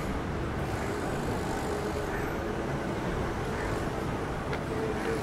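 Steady road traffic noise from passing cars on a city street.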